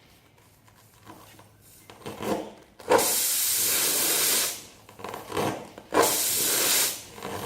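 A tyre-plug reamer rasping into a screw puncture in a tyre, then air hissing loudly out of the reamed hole in two bursts of about a second and a half each, the first about three seconds in.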